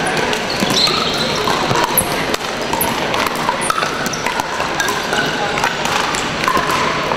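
Pickleball rally: sharp pops of paddles striking the hollow plastic ball, with brief sneaker squeaks on the hardwood floor, over the steady din of play and chatter from many other courts in a large echoing hall.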